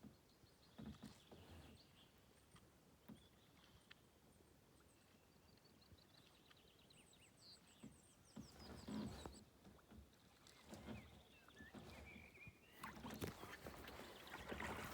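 Kayak paddling: faint paddle dips and water splashes against the hull, growing louder and more continuous near the end. Small birds chirp in quick series of short, high calls around the middle.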